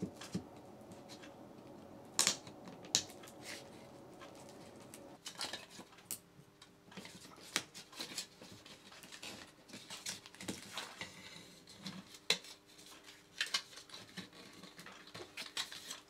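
Screwdriver prising a plastic electrical back box out of a plasterboard wall: scattered small clicks, scrapes and knocks of metal against plastic. Two sharper clicks come a couple of seconds in, and the clicks grow denser about five seconds in as the box works loose.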